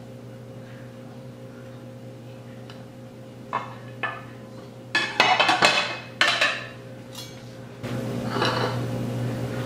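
Dishes and kitchen utensils clattering on a countertop: two light knocks about three and a half seconds in, then a quick run of clinks and clatters a second later, over a low steady hum.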